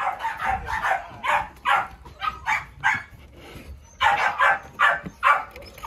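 American Bully dogs barking repeatedly: a run of sharp barks, a short lull about three seconds in, then another quick run of barks.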